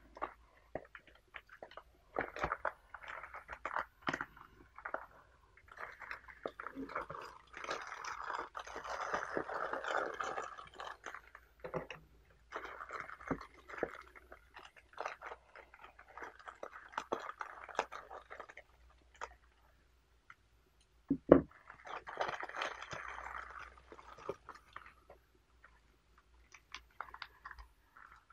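Foil tea bags and a plastic wrapper crinkling and rustling as they are handled, with scissors snipping the plastic, in irregular bursts. One sharp knock about three-quarters of the way through is the loudest sound.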